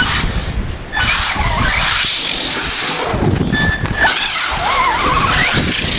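Team Associated SC10 4x4 RC short-course truck's 2400kv brushless motor on 4S LiPo, throttled in two bursts. The motor whine rises and falls in pitch over a rushing hiss.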